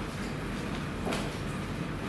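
Steady room noise of a busy barber shop, a low hum and hiss, with a faint tap about a second in.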